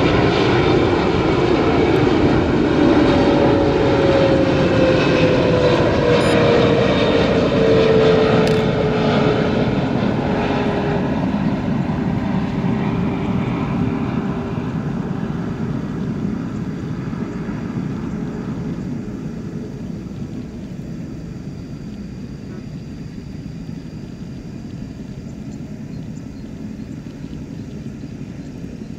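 Boeing 777-300ER's twin GE90-115B turbofans on final approach, passing close: a loud jet rumble with a whine that falls in pitch as the airliner goes by. The sound then fades steadily as it moves away toward the runway.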